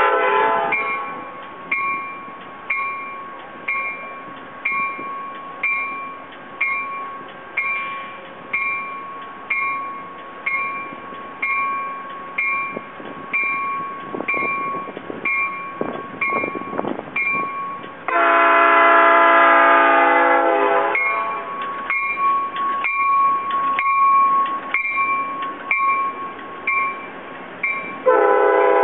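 Train horn on an arriving Amtrak Capitol Corridor cab car: one long blast about two-thirds of the way in, and another starting near the end. Between the blasts a bell dings steadily about every 0.6 s, and the train's wheels rumble past.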